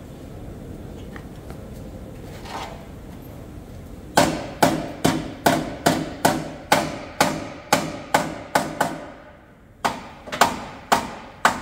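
Hand hammer blows on the metal of a collision-damaged car's front end. A steady run of about three strikes a second starts about four seconds in, each with a short ring. After a brief pause there are four more strikes near the end.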